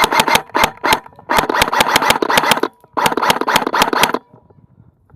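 Airsoft gun firing: a quick string of single shots, then two bursts of rapid full-auto fire about a second long each, separated by a short pause, with a faint mechanical whine under the bursts.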